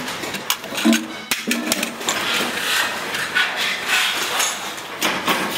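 Hand hammering on metal in a can workshop: a quick run of sharp taps and knocks in the first two seconds, then steadier workshop hiss with a few scattered taps.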